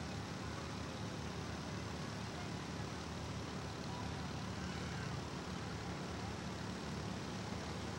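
Several riding lawn mower engines running steadily, a low even hum over a wash of background noise.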